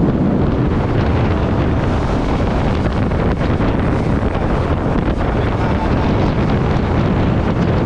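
Wind buffeting the microphone over the steady running of a boat's V8 outboard motor and the hull rushing through the water at speed.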